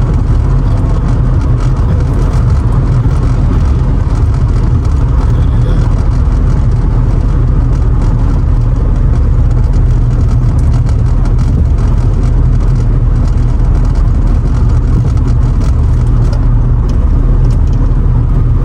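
Steady in-cabin rumble of a Mercedes R129 SL500 cruising at highway speed: a loud, even low drone of road noise and engine with no changes.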